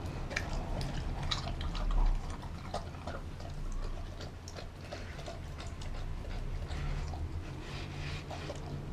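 Doberman eating raw food from a glass bowl: wet chewing and licking with irregular clicks of teeth and tongue against the glass, and a low thump about two seconds in.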